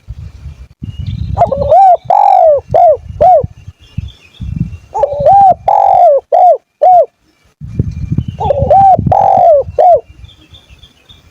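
An animal calling in three phrases of short, rising-and-falling pitched notes, one phrase every few seconds, with low rumbling noise underneath.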